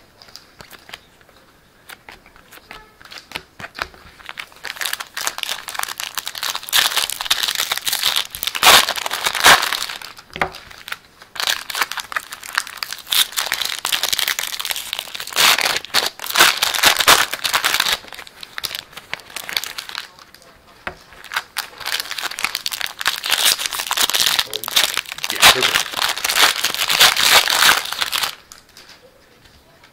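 Foil trading-card pack wrappers crinkling and tearing as packs are opened, close to the microphone, in long crackly stretches from about four seconds in until near the end, with short pauses between packs.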